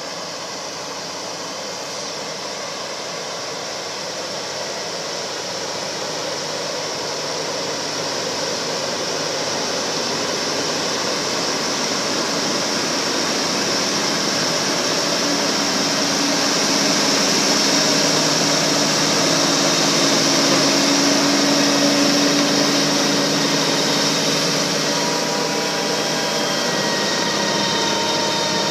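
Tractor engine running under load while driving a power harrow, its rotating tines working through the soil, a steady mechanical noise that grows louder as the machine comes closer. A thin whine comes in near the end.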